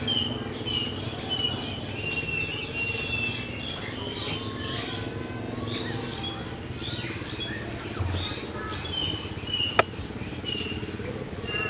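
Small birds chirping throughout, many short, repeated high calls overlapping, with a steady low background hum. A single sharp click sounds near the end and is the loudest moment.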